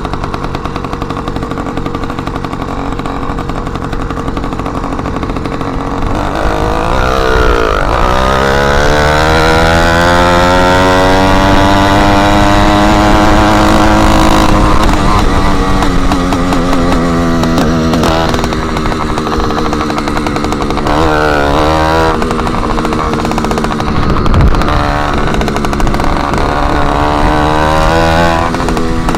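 Small engine of a motorized bicycle running loud with its exhaust tip removed, revving up steadily over several seconds, then held at speed with a few short drops and pickups in the throttle.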